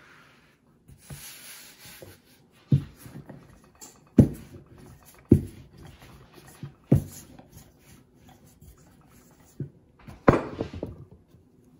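A wooden rolling pin rolling out pie dough on a floured wooden board: soft rubbing and scraping, broken by about five dull wooden knocks as the pin is worked and set down. The loudest knock comes near the end.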